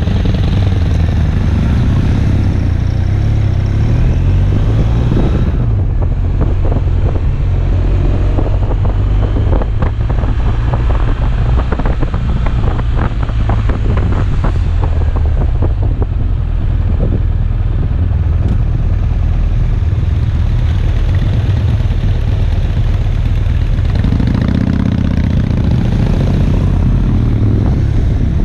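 Motorcycle engine running under way, with wind buffeting and crackling on the microphone; the engine note rises and falls once near the end.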